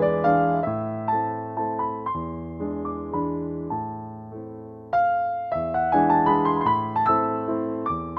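Background piano music: a gentle melody over chords, with a fuller, louder chord entering about five seconds in.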